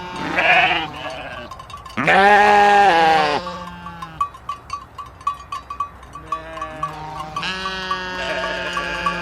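Sheep bleating, several long wavering calls, the loudest about two seconds in and another near the end. A faint, regular ticking runs between the calls.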